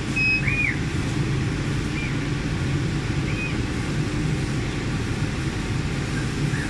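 Laser cutting machine running on fabric: a steady low hum from its fans, with a few short rising-and-falling whines from the stepper motors as the cutting head moves and stops.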